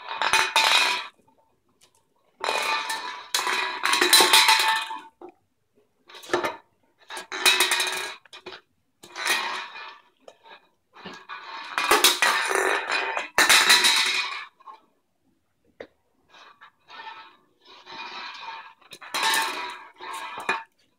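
Aluminium soda can rolling, scraping and clattering across a tiled floor as a puppy pushes it with its nose, in repeated bursts of a second or several seconds with short pauses between.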